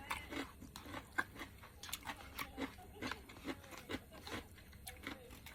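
Close-miked eating sounds: chewing and wet lip smacks, with a quick run of short clicks a few times a second and a couple of brief low hums.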